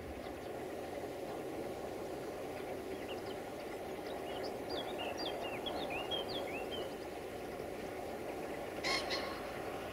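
Romanian 060-DA diesel locomotive standing with its engine idling, a steady low rumble, while birds chirp for a few seconds in the middle. Near the end a brief, louder high-pitched call cuts through.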